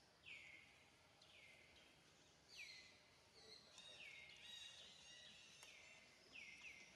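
Faint bird calls: a note sliding down in pitch, repeated about once a second, with quicker chirps and trills from another bird joining in the middle.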